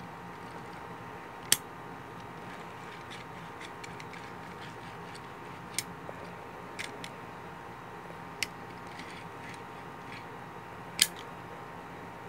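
A few small sharp clicks and taps from a die-cast toy car being handled and set down, over a steady low hiss. The two loudest clicks come about a second and a half in and near the end.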